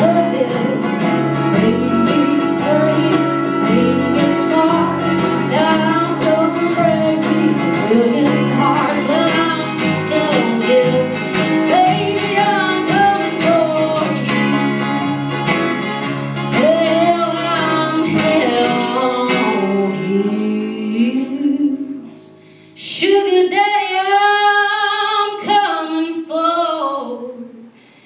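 A woman singing a country song over strummed acoustic guitar and fiddle. A little past three-quarters of the way through the music breaks off briefly, then a short phrase of bending, wavering held notes follows and fades just before the end.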